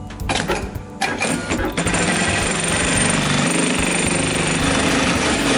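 Industrial programmable pattern sewing machine (DEMATRON DM-2210) stitching through a webbing strap: a few separate clicks, then a rapid, steady needle chatter from about a second in as it runs up to full stitching speed.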